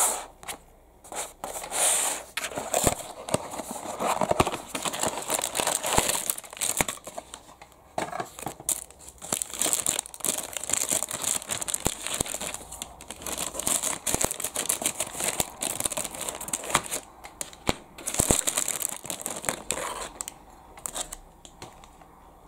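Cardboard packaging being handled and opened, then a clear plastic bag crinkling and rustling as a diecast model airliner is unwrapped from it, with scattered sharp clicks and light knocks. The rustling dies down near the end.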